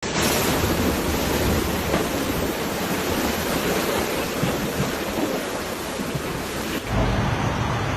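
Hurricane wind and rain: a loud, steady rush of noise. About seven seconds in it shifts to a heavier low rumble.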